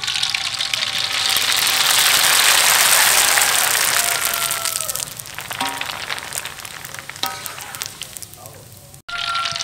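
Dry thin noodles frying in hot oil in a wok, a loud sizzle and crackle as they puff. It builds over the first couple of seconds, then slowly dies down as the noodles finish puffing.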